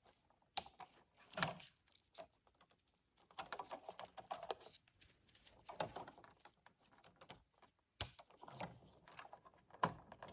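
Handling of electrical wire and Wago lever-nut connectors while pigtailing wires: a few sharp clicks, the loudest about half a second in and about eight seconds in, among bursts of rustling and scraping.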